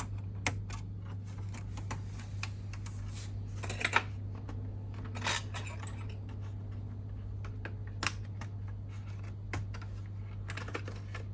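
Scattered small plastic clicks and taps of a laptop being taken apart by hand: ribbon-cable connectors and internal parts being unclipped, a few louder clicks among them, over a steady low hum.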